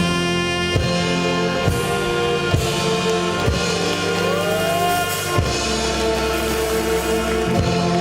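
Saxophone orchestra holding sustained chords over a drum kit, with drum hits roughly once a second. One note slides upward about halfway through.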